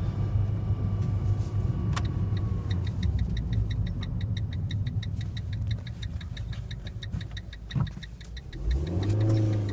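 2013 Fiat 500 Sport's 1.4-litre four-cylinder engine running while driving, heard from inside the cabin; with its airbox broken it has an intake sound like a cold air intake. A turn signal ticks evenly from about two and a half seconds in until near the end, when the engine revs up.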